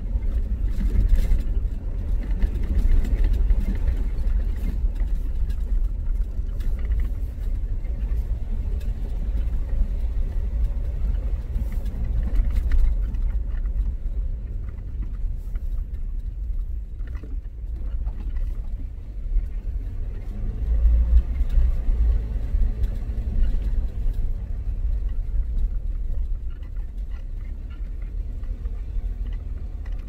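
Car driving along a road, heard from inside: a steady low rumble of road and engine noise.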